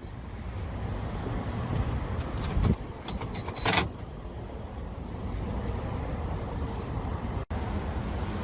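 Steady low outdoor rumble with a few short sharp clicks or knocks, about two and a half and three and a half seconds in.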